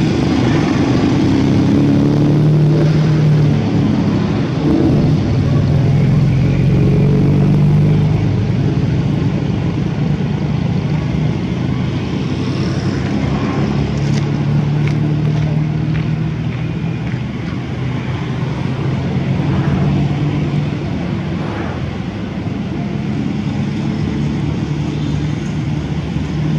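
Motor vehicle engines running, a steady low hum that swells and fades several times.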